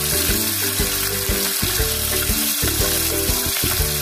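Topse (mango fish) frying in hot mustard oil in a kadai, with a steady, continuous sizzle. Background music plays underneath.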